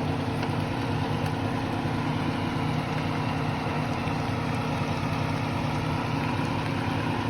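Steady, even machine-like hum with a hiss over it.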